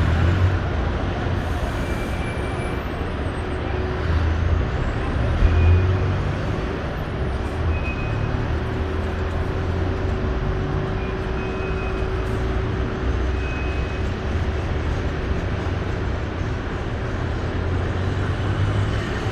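Road traffic at a busy roundabout: cars, buses and trucks passing in a continuous rumble of engines and tyres, swelling and fading as vehicles go by.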